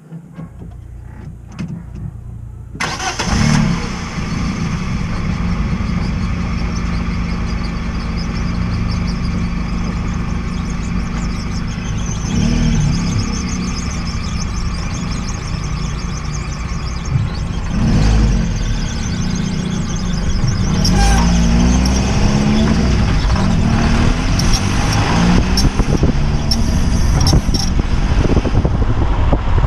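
Fiat 500L's 1.4-litre four-cylinder petrol engine starting and then running steadily, making a strange noise from the engine bay. The sound grows much louder about three seconds in, with brief swells near the start and around the middle.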